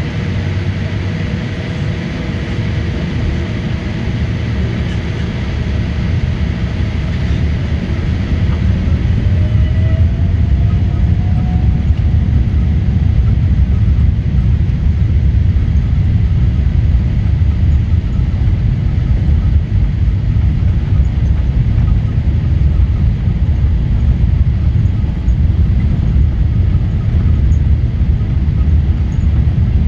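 Inside the cabin of a Boeing 787-8 during takeoff: a steady deep rumble from its Rolls-Royce Trent 1000 engines and the airflow, growing louder over the first ten seconds or so. About nine seconds in, a faint whine rises in pitch and fades.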